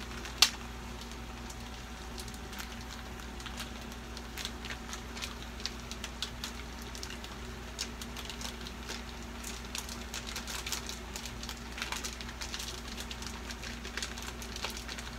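Faint steady crackle and hiss of food cooking on a gas stove, with one sharp click about half a second in.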